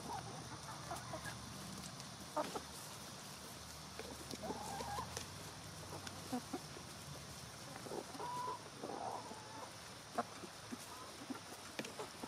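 Chickens clucking softly in short, scattered calls as they feed, with sharp taps of pecking in between.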